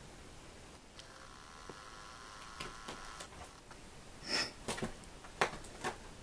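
A cat shifting about on an upholstered armchair: a short breathy rustle about four seconds in, followed by a few faint clicks, in an otherwise quiet room.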